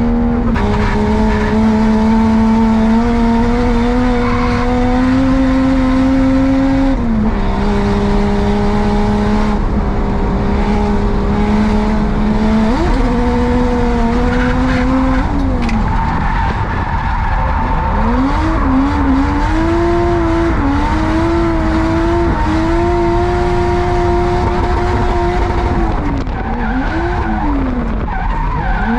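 Drift car's engine held at high revs through long slides, heard from inside the cabin, with tyres squealing. The engine note drops sharply about seven seconds in and again around fifteen seconds, then climbs back and holds.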